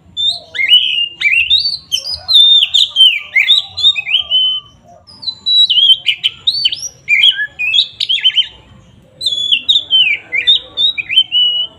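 Oriental magpie-robin (kacer) singing loudly in full song: rapid, varied whistled notes that slide up and down, in three long phrases separated by brief pauses.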